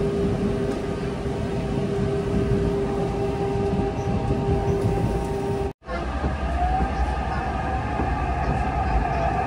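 Electric commuter train running, heard from inside the passenger car: steady rumble of the wheels on the track with a steady motor whine. The sound drops out briefly about six seconds in, after which a higher whine slowly rises in pitch.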